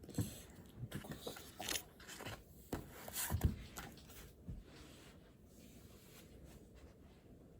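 Handling noises at a desk: a quick run of clicks, knocks and short rustles for about four seconds, then only faint room tone.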